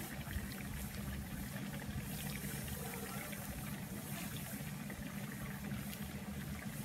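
Plantain slices frying in hot oil in a pan: a steady sizzle with fine crackles, over a low steady hum.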